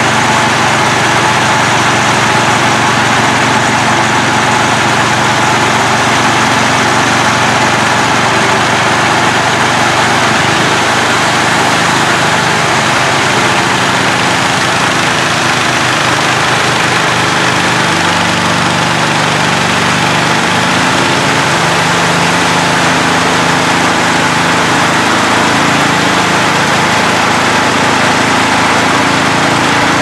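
Small engine driving a portable grain auger, running steadily under load while unloading grain, with a steady hiss over it.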